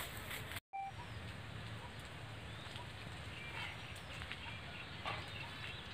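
Outdoor ambience: a steady low rumble with faint, scattered bird chirps; the sound drops out completely for a moment about half a second in.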